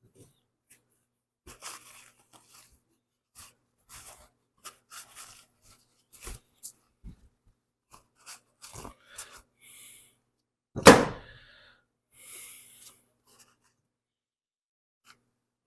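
Scattered small clicks and scrapes of hand tools and metal parts being handled on a mower blade spindle during bearing work, with one loud metallic knock about eleven seconds in.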